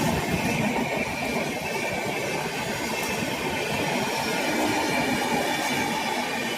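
Passing train running steadily by at speed: a continuous rush and rattle of wheels on rails, with a faint thin high ringing above it.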